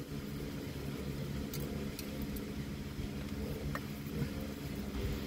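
A steady low hum with a few faint clicks and a short squeak, as the Phillips screws holding a car's A/C compressor clutch coil are worked loose.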